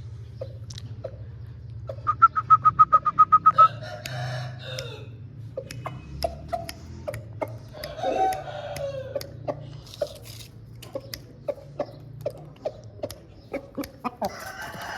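Aseel chickens calling: a quick loud run of about ten short clucking notes about two seconds in, followed by longer squawking calls near four and eight seconds. Sharp clicks are scattered throughout, over a steady low hum.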